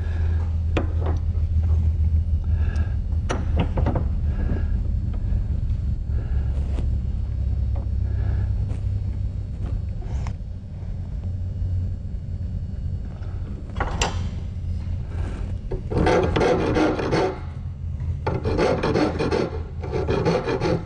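Hand file rasping across the steel ends of a shotgun's hinge pin held in a vise, filing the sawn-off pin ends down flush with the action. The first strokes are light and scattered, with a sharp click about two-thirds of the way in. Near the end come three runs of steady, vigorous back-and-forth strokes.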